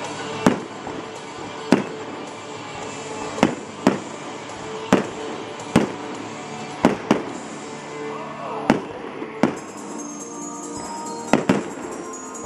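Aerial firework shells bursting in a run of sharp bangs, about one a second and sometimes two in quick succession, with music playing underneath.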